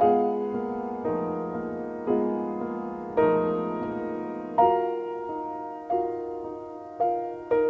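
Background music: gentle piano, with soft chords struck about once a second and left to ring out.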